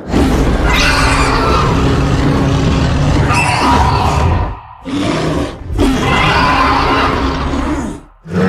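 Designed creature sound effect for a gorilla-like 'night feeder' monster: deep, rumbling roars and growls. One long roar of about four and a half seconds is followed by a short one and then another of about two seconds, each ending abruptly.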